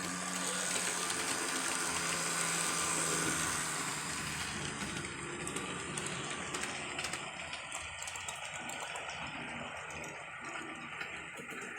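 HO scale model train running on the track: the locomotive's electric motor and gears humming steadily, fading after a few seconds, with light clicking and rattling of wheels over the rail joints.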